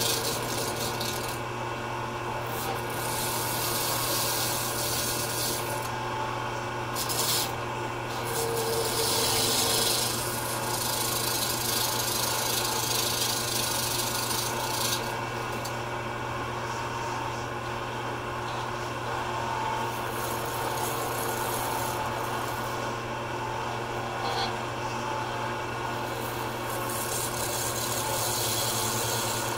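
Skew chisel cutting a black acrylic pen blank spinning on a wood lathe: a steady shaving hiss that thins out for a moment in several short gaps between passes, over the lathe's steady motor hum.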